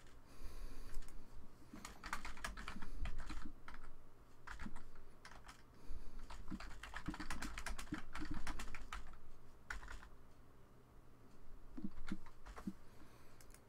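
Typing on a computer keyboard: irregular runs of keystrokes with short pauses between words, and a longer pause about ten seconds in.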